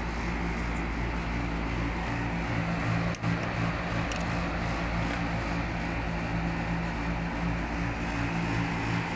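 Steady low mechanical hum of running plant machinery, with a brief dropout about three seconds in.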